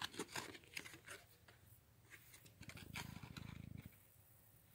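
Near silence with faint clicks and rustles of a baseball trading card being handled and flipped over. A faint low buzz lasts about a second a little past the middle.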